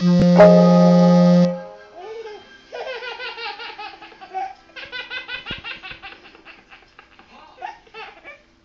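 A loud steady tone for about a second and a half, then a baby laughing in repeated bursts of belly laughs.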